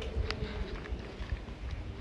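Footsteps with irregular light knocks and low thuds, as things are carried by hand.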